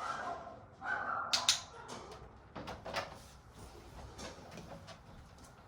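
Puppy giving a short whine just under a second in, followed by a few sharp clicks and knocks.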